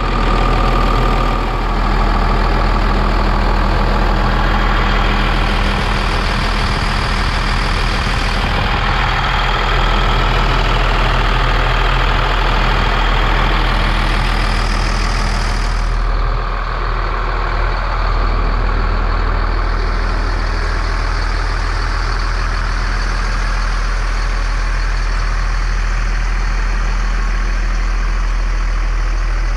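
2000 Freightliner FL70 truck's diesel engine idling steadily.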